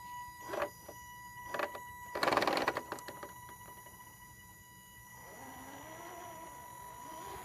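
Axial SCX10 RC crawler's electric motor and drivetrain whining as the truck climbs a sandy dirt bank. There are three short bursts of tyres scrabbling and grit crunching in the first three seconds, the third the loudest. Near the end the whine rises and falls with the throttle.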